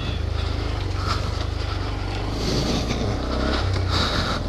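Honda Grom's single-cylinder engine running through its stock exhaust while the bike rides a grassy trail, its pitch shifting a little with the throttle, under a rush of wind and brush noise on the helmet microphone.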